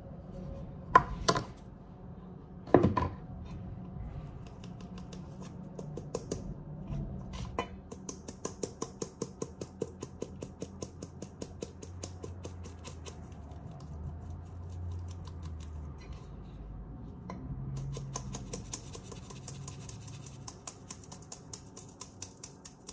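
Flour being sifted through a fine wire-mesh sieve over a stainless steel bowl: the sieve is shaken and tapped in quick runs of light, even clicks, several a second, with a soft hiss of flour and mesh during the later run. A few louder knocks come in the first three seconds.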